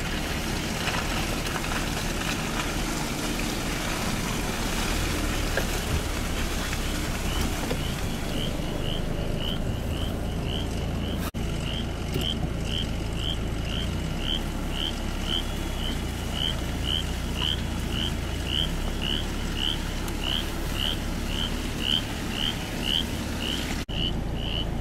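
A frog calling from the floodwater: a short rising chirp repeated about twice a second, starting several seconds in, over a steady low rumble.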